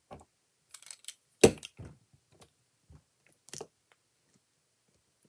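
Scattered light clicks and taps from a craft pick-up tool lifting adhesive gems off their sheet and pressing them onto a paper card, with one sharper knock about one and a half seconds in.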